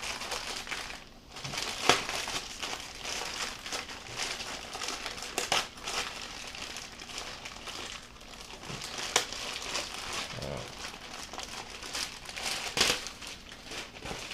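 Packing tape being peeled off an amplifier's box and its packaging crinkling and rustling, with sharp snaps every few seconds.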